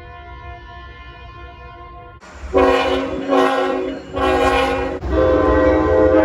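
Locomotive air horns: a fainter horn sounds steadily for about two seconds, then a much louder horn blows four blasts in a row, the last held longest, over a low rumble.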